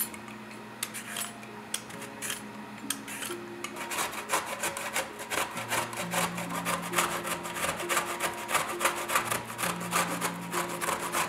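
A sweet potato is scraped with a vegetable peeler in a few separate strokes. Then, about three and a half seconds in, it is rubbed fast against the large holes of a metal box grater, a quick run of rasping strokes, several a second.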